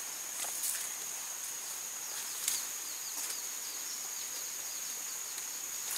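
Outdoor rural ambience: a steady high-pitched hum with a run of faint, quick bird chirps in the middle, and a single small click about two and a half seconds in.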